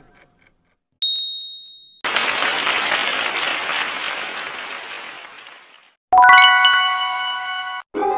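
Quiz-game sound effects. About a second in comes a single high ding that cuts off after a second as the timer runs out. A burst of applause follows, fading away over about four seconds while the right answer is revealed, and near the end comes a bright bell chime of several tones.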